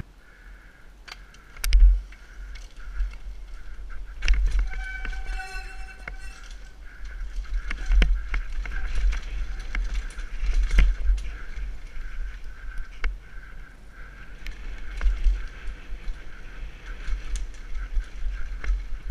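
Downhill mountain bike rattling down a rocky, rooty dirt trail: tyres on dirt and rock, with frequent sharp knocks and clatter from the frame and chain, and wind rumbling on the helmet-mounted microphone. A brief pitched squeal comes about five seconds in.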